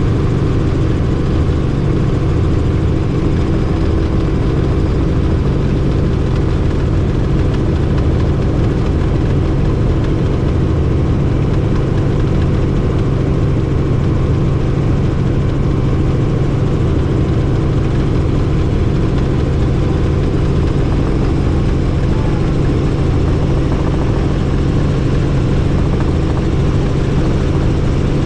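Helicopter in flight: loud, steady rotor and engine drone with a constant pitch, unchanging throughout.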